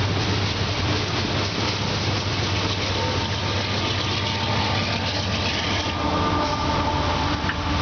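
Loaded coal train rolling past, steel wheels running on the rails, while the train's last diesel-electric locomotive goes by with a steady low engine hum. Faint thin higher tones join in during the second half.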